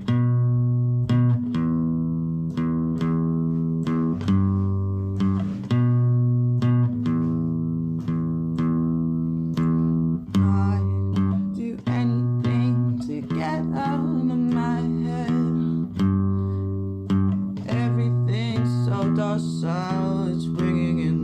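Instrumental rock intro: guitar chords plucked in a steady rhythm over a bass guitar line that steps between a few notes. About halfway through, a wavering melodic line joins on top.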